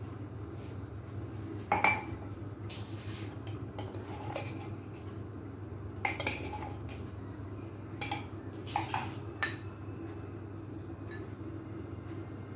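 Kitchen glassware and a metal spoon clinking as dry batter ingredients are tipped and spooned into a glass mixing bowl: a handful of separate sharp clinks and taps, the loudest about two seconds in, over a steady low hum.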